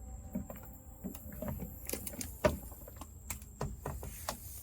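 A run of light, irregular clicks and taps from cooking utensils being handled as the finished steak is dealt with at the grill, the loudest about two and a half seconds in.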